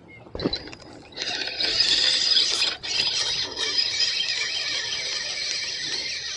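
A spinning reel being cranked to wind in line, its gears whirring steadily at a high pitch for several seconds, with a brief break a couple of seconds in. A short swish of the feeder being cast comes just before.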